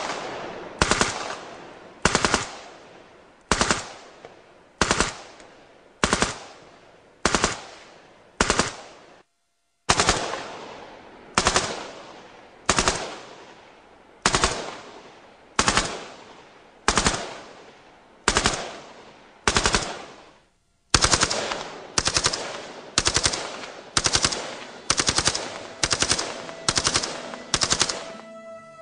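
Light machine guns firing short bursts of a few rounds each, with a ringing echo after every burst. First an RPK-74, at about one burst every second and a half; near the end an M16A2-based light machine gun, with bursts coming faster.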